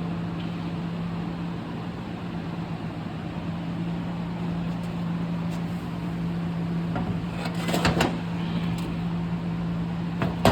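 Steady low machine hum, with a short clatter of knocks about eight seconds in and another sharp knock near the end.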